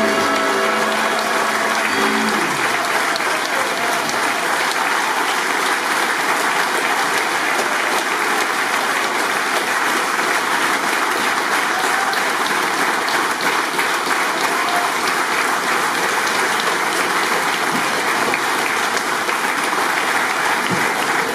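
A large concert audience applauding steadily in a church, the clapping running on evenly. In the first two seconds the last sung chord of a choir dies away under the clapping.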